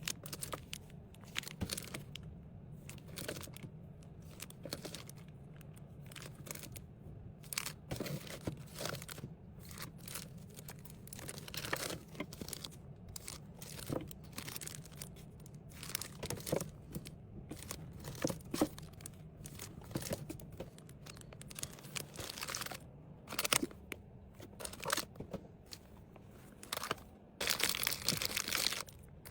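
Packaging being handled: irregular crinkling and crackling of plastic and paper wrappers as items are packed, with a longer, louder stretch of rustling near the end. A faint steady low hum lies underneath.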